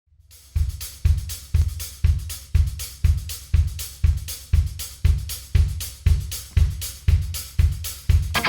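Drum kit playing a steady beat at about two beats a second, a heavy bass-drum hit on each beat with hi-hat and cymbal strokes between, starting about half a second in.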